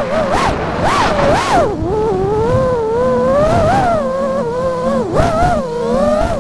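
Five-inch FPV freestyle quadcopter's Axisflying C227 1960 kV brushless motors and props whining, the pitch jumping up and down sharply with quick throttle punches, then swelling and dipping more slowly.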